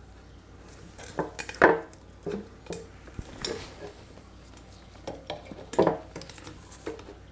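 Pliers and metal parts clinking and scraping while a stuck fuel line is worked off a small engine's carburetor: scattered small clicks, with two louder knocks about a second and a half in and near six seconds in.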